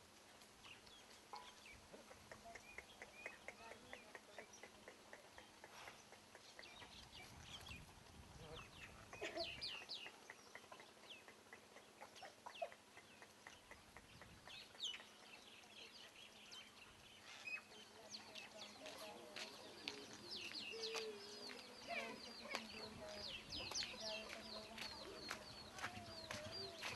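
Faint farmyard birds: chickens clucking and small birds chirping, with many short high chirps scattered throughout and a few lower clucking calls now and then.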